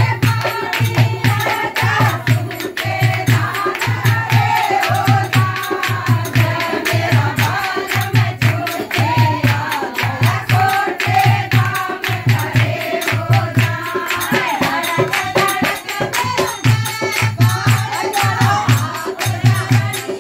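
Folk song sung by a group of women, over a steady low drum beat at about one and a half beats a second, with hand claps and rattling percussion.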